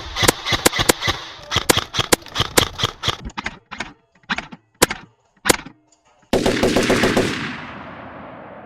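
Rapid gunshots, several a second for about three seconds, then a few spaced single shots. About six seconds in, a sudden loud boom sets in and dies away slowly.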